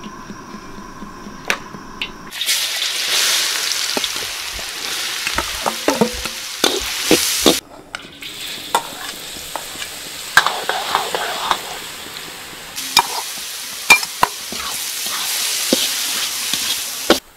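Minced garlic and chopped chillies frying in hot oil in a wok: a loud sizzle that starts abruptly a couple of seconds in, breaks off briefly near the middle and starts again, with clicks and scrapes of stirring.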